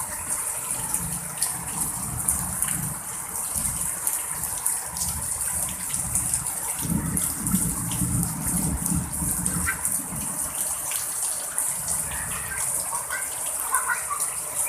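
Heavy rain pouring down steadily while strong wind gusts, with an uneven low rumble from the wind hitting the microphone.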